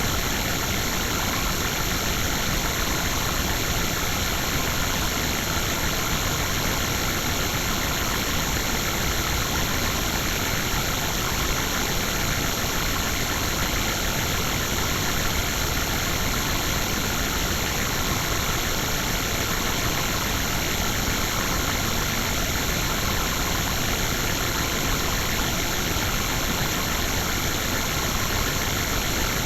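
Steady, dense digitally processed noise from a ring-modulator-style audio effect, with a few faint fixed ringing tones over it. It holds one level throughout, with no breaks or separate events.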